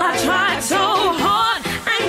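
Pop song with a sung lead vocal, the voice's held notes wavering with vibrato over a steady backing track.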